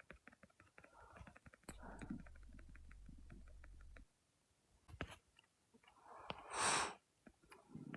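Faint gurgling and rumbling from a man's stomach, scattered with small clicks, and a short breathy rustle about six and a half seconds in.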